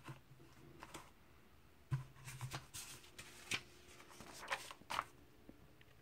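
Glossy comic book pages turned by hand: a couple of light taps, then paper rustling and crinkling in quick, short runs from about two seconds in until near the end.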